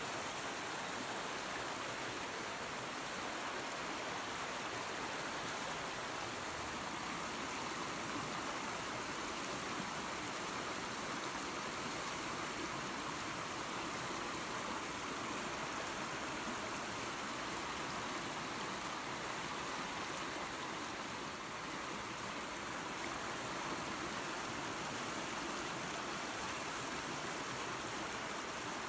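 Steady rushing of a small waterfall and creek, an even hiss of flowing water with no breaks.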